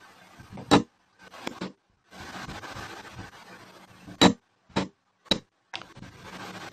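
Steel chisel working in the engraved marks of a charred shou sugi ban wooden board: about six sharp clicks of the tip against the wood, the loudest about a second in and just past the middle, with stretches of dry scraping between.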